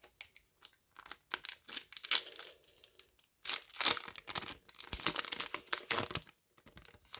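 Yu-Gi-Oh booster pack's foil wrapper being torn open and crinkled, in two spells of dense crackling: one from about a second in, a louder one from about three and a half seconds in, stopping after about six seconds.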